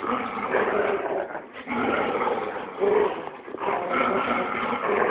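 Dogs growling in play while tugging on a toy, a near-continuous growl with short lulls about a second and a half in and again past three seconds.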